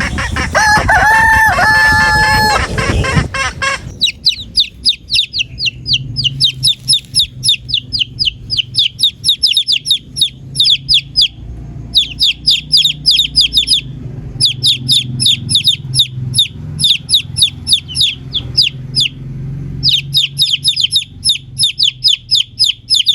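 A rooster crows in the first few seconds. From about four seconds in comes a long run of rapid, very high-pitched chirps, several a second, in bouts with short pauses between them.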